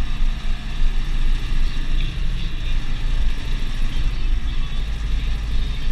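Deutz DX 4.70 tractor's air-cooled four-cylinder diesel engine running steadily under way, heard from inside the cab.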